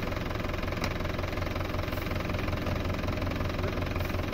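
Tractor's diesel engine idling steadily with a low, even hum.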